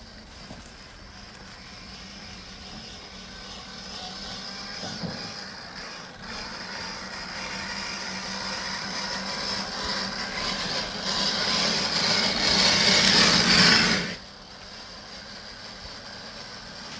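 Axial SCX10 III Gladiator RC crawler's electric motor and gears whining as it drives, growing steadily louder and then cutting off suddenly about fourteen seconds in.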